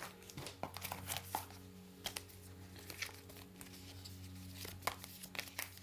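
Packaging and paper inserts rustling and crinkling as they are handled and taken out of a phone box, with many small scattered clicks, over a faint steady low hum.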